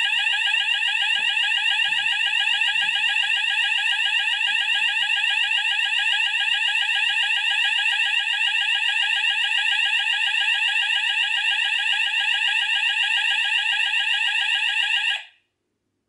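Addressable fire alarm sounders sounding a continuous, rapidly sweeping alarm tone after a smoke detector has been set off during a system test. The tone cuts off abruptly about fifteen seconds in, when the alarm is silenced.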